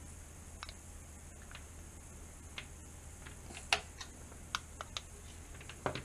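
Scattered small, sharp clicks and taps, about eight in all, as alligator-clip test leads are handled and unclipped from a perforated LED wiring board, over a faint low hum.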